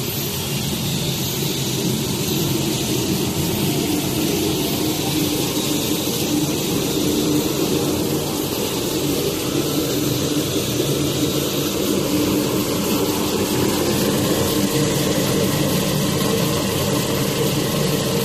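Artificial rice production line machinery running: a steady mechanical hum and whir from the line's motors, dryer fans, conveyor and vibrating sieve, with constant low tones and no change in pace.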